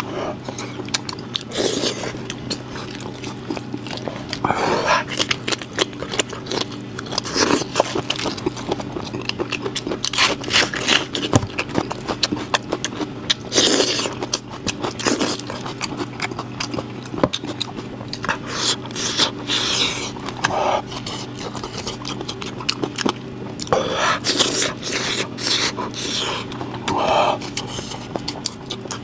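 A person eating goat head meat close to the microphone: irregular wet chewing, biting and tearing noises throughout, over a steady low hum.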